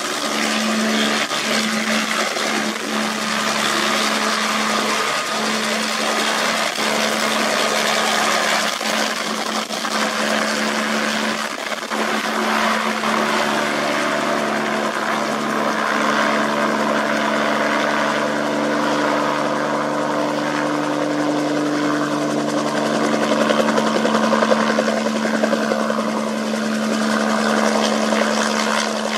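Bell 47G2 helicopter, with its 260 HP Lycoming piston engine and main rotor, hovering low and turning in place: a steady engine drone with a constant hum, growing slightly louder about two-thirds of the way through.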